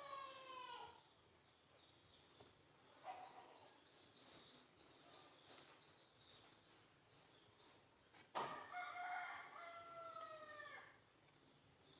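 A rooster's crow trails off in the first second, then a small bird chirps a quick series of high notes, about three a second, for some five seconds. After a sharp click about eight seconds in, a rooster crows again for about two and a half seconds.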